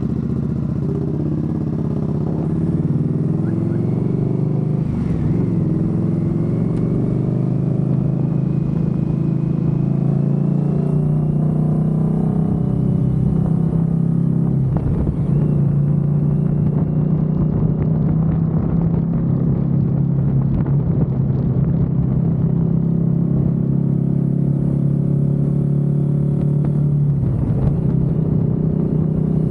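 Motorcycle engine running steadily while riding at road speed. Its note breaks and picks up again about three times, as with gear changes.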